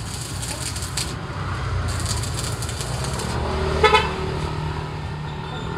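Arc welder crackling on a steel scooter frame in two stretches, about a second each, in the first half. About four seconds in comes a short horn toot, the loudest sound, over a steady low hum.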